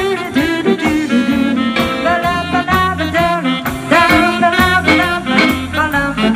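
Jazz band playing a swing tune: a melody line over a walking bass and a steady drum beat.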